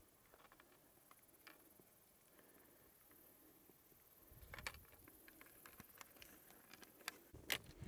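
Near silence on an open mountainside, then from about halfway a low rumble of wind on the microphone with a few light clicks, the sharpest near the end.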